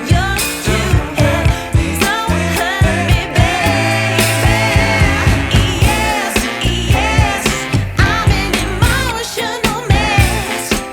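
Pop song with singing over a steady drum beat.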